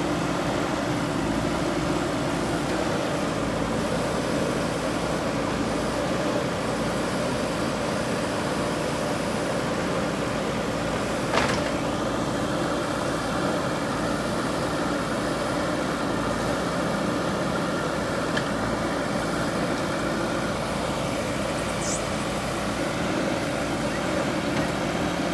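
Diesel engine of a JCB backhoe loader running steadily at a constant speed while working. There is a single sharp metallic clank about eleven seconds in.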